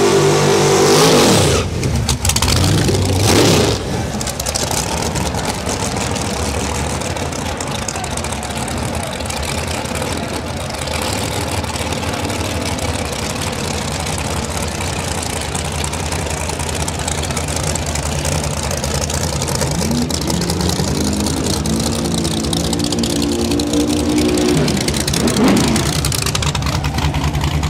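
Drag-race car engine idling loud and rough, blipped up and down in quick rises and falls of revs near the start and again near the end, with revving that climbs in steps a few seconds before the end.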